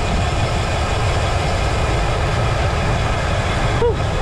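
Steady wind rumble buffeting a handlebar-mounted camera's microphone on a road bike riding at about 45 km/h, with tyre hum on asphalt underneath. A brief pitched chirp comes near the end.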